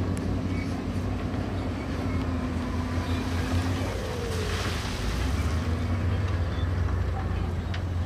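Heavy diesel engine of earthmoving equipment running with a steady low drone; its low note shifts about five seconds in, and a brief hiss rises over it around the middle.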